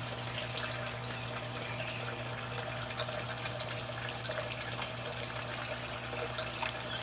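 Chicken feet cooking in adobo sauce in a pan, the liquid bubbling with a steady watery hiss and many small pops.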